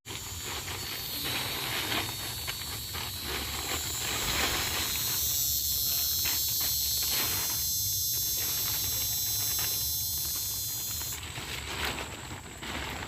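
Steady high-pitched insect chorus in several shrill layers, over intermittent rustling, cutting off abruptly near the end.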